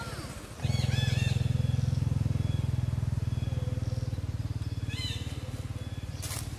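A small engine starts up loud just after the start, running steadily with a fast pulsing low note and slowly fading. Short high squeaky chirps come about a second in and again near five seconds.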